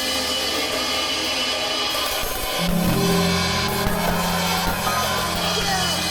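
A drum kit with Steely B10 bronze cymbals played along to a song, the cymbals washing throughout. A held low note comes in about two and a half seconds in.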